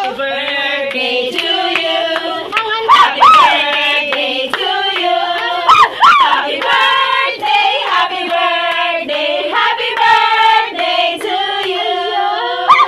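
A group of people singing a birthday song together and clapping in time, the claps a steady rhythm under the held notes of the tune.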